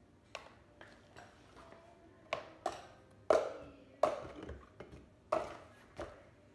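A series of irregular sharp knocks and clinks, about eight in all, some with a short ring, the loudest a little past three seconds in.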